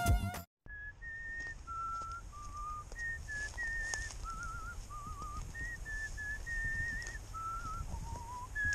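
A person whistling a slow tune: single held notes stepping up and down between pitches in short phrases, some with a wavering vibrato, over a low rumble.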